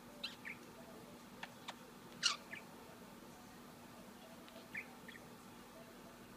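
English budgie making a few short chirps, with one louder, quickly falling chirp a little over two seconds in. Two sharp clicks come about a second and a half in.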